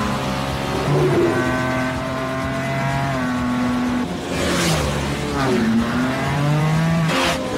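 Ducati 916 V-twin sport bike engines running hard at speed, the pitch holding, stepping between gears, sagging about halfway, then climbing again. Two brief rushes of noise, one about halfway and one near the end.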